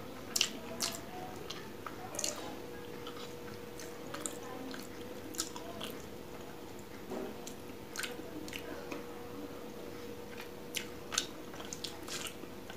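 Close-miked eating with the hands: chewing a mouthful of rice and fish, with sharp wet mouth clicks scattered every second or two, and soft squishing of rice being mixed by fingers. A faint steady hum sits underneath.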